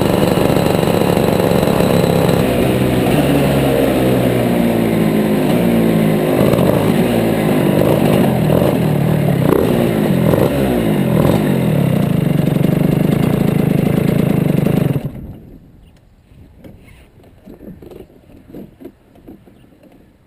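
Shifter kart engine running on track, its pitch rising and falling as it revs up and down, then stopping abruptly about three quarters of the way through. After that only faint scattered knocks remain.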